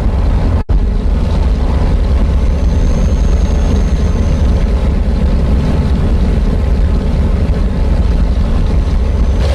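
Scania truck's diesel engine running steadily, a loud, deep drone. The sound cuts out for an instant under a second in.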